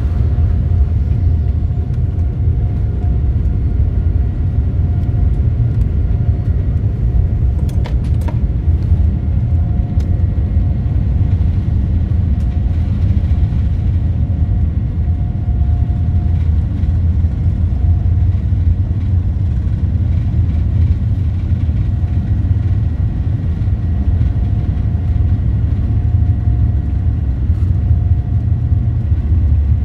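Steady low cabin rumble of a Boeing 787-9 taxiing, with a faint steady whine running through it.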